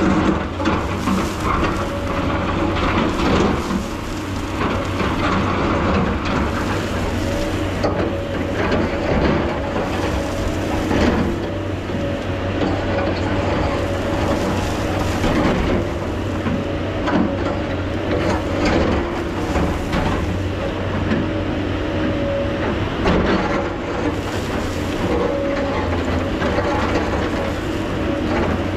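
JCB tracked excavator running steadily with a constant low hum and a steady whine, while its raised bucket scrapes the cliff face. Loosened soil and stones rattle down in many irregular small crunches and knocks.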